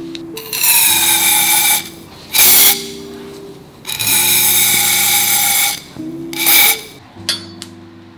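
Small power-tool motor whining in four short bursts, the longest about two seconds, over background music.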